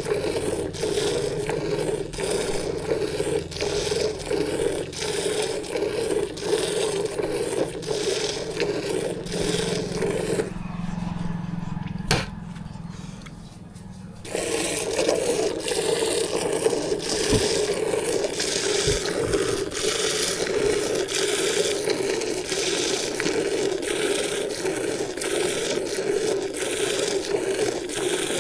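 A buffalo being milked by hand: rhythmic jets of milk squirting into the milking vessel, stroke after stroke. The jets pause for a few seconds around the middle and then resume.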